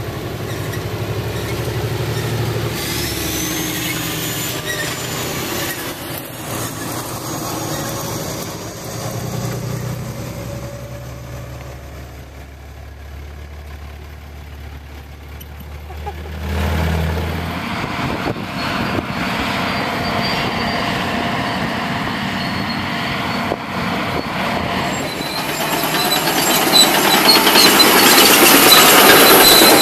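Diesel pickup trucks driving on dirt, engines running with a low steady hum. About halfway through this gives way to the noisier clatter of heavy construction equipment running, which grows louder near the end.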